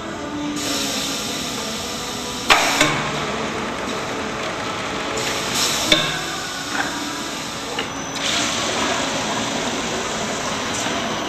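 Pressure gravity bottle filler running, with a steady hiss of liquid flowing through the nozzles into glass bottles. Two sharp clanks, a few seconds apart, come as the glass bottles are indexed along the conveyor.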